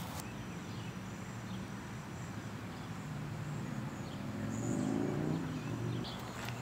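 A low engine hum from a passing vehicle, swelling about four to five seconds in and then fading.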